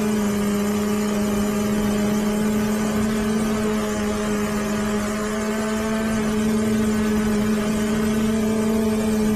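Quadcopter motors and propellers heard from the drone's own onboard camera: a steady buzzing hum with a slight waver in pitch as it hovers, over constant hiss.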